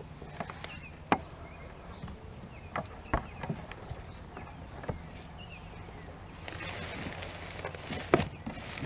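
Scattered knocks and clicks of gear being handled on a kayak, with a rustling in the last couple of seconds.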